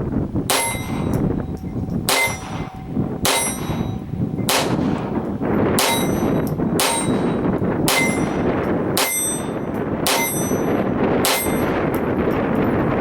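A Colt Woodsman Match Target .22 LR semi-automatic pistol fired about ten times, roughly one shot a second, with a short metallic ring after most shots. Wind noise runs underneath.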